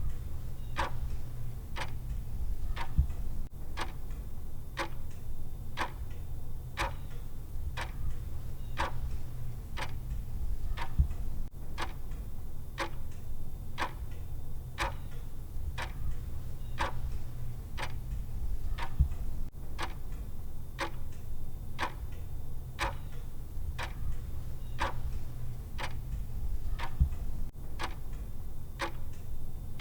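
Clock ticking at a steady, even rate, one short tick after another, over a low steady hum.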